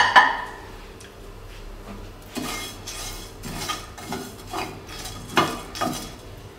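Whole spices (coriander, cumin and fennel seeds with peppercorns and cardamom) being dry-roasted in a hot nonstick frying pan. A sharp clink at the start, then about two seconds in a spatula begins stirring and scraping the seeds across the pan in repeated strokes, about two a second.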